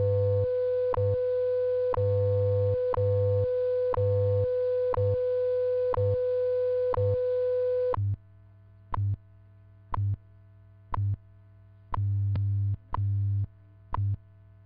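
WWV time-signal broadcast: a steady standard audio tone with a short clock tick every second and the low, pulsing time-code hum beneath. The tone cuts off about eight seconds in, leaving only the once-a-second ticks and the code pulses.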